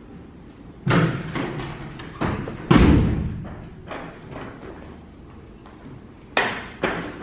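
A series of heavy thuds and knocks at uneven intervals, the loudest about a second in and near the third second, each dying away with a short echo.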